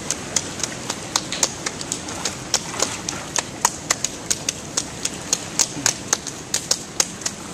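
Rain falling: a steady hiss with sharp, irregular drop ticks, several a second.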